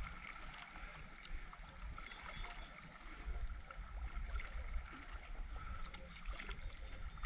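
Water gurgling and lapping against a plastic sit-on-top kayak as it is paddled quietly, with a few faint paddle ticks and a low rumble of wind on the microphone.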